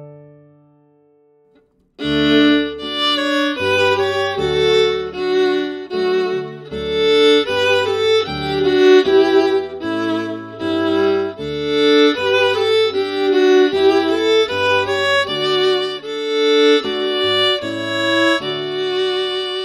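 A fiddle comes in about two seconds in and plays a lively tune at full performance speed, with lower accompanying notes held beneath it.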